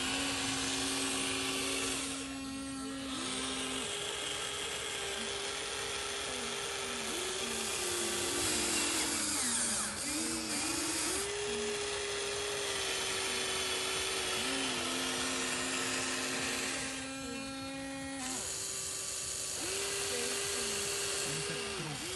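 Electric motors of a radio-controlled model excavator whining as it digs. The pitch steps and glides up and down as the load changes, and it dips briefly about two seconds in and again near seventeen seconds.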